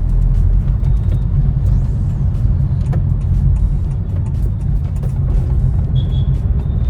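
Steady low road and engine rumble heard inside the cabin of a Honda Elevate driving in city traffic.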